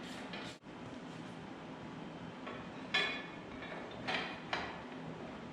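Sharp metal-on-metal clinks, three of them in the second half, each ringing briefly: steel parts knocking together.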